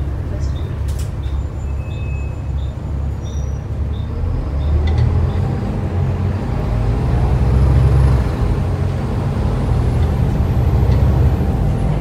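Volvo B7TL double-decker bus heard from inside the saloon: its six-cylinder diesel runs under a steady ticking of the indicator for the first few seconds, then builds up and rises in pitch as the bus pulls away from the stop and accelerates.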